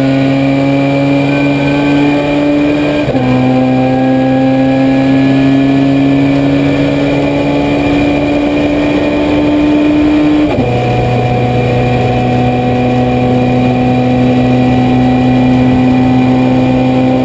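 Honda CRX race car's four-cylinder engine at full throttle, heard inside the stripped cockpit, its note climbing steadily under acceleration. It drops sharply at two upshifts, about three seconds in and about ten and a half seconds in, then pulls on at a nearly steady pitch in the higher gear.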